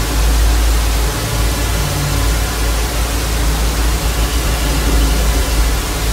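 Steady television static hiss: an even rushing noise across all pitches, loud and unbroken, over a deep low rumble.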